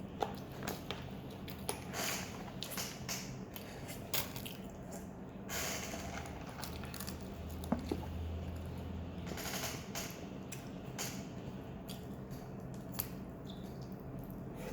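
Eating and handling takeaway fried-chicken food and its wrappings: scattered soft clicks and crinkles, with longer rustles about five and a half and nine and a half seconds in, over a steady low hum.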